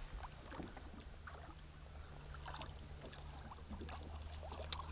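Faint sounds of a fishing boat on the water: a low steady hum, with small splashes of water lapping against the hull and a sharper tick near the end.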